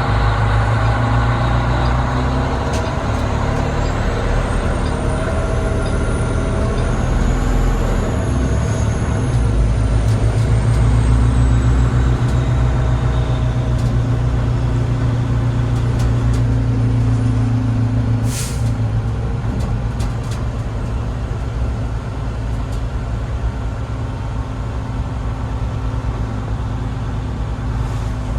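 Fire truck's diesel engine running steadily, with a short burst of air-brake hiss about two-thirds of the way through.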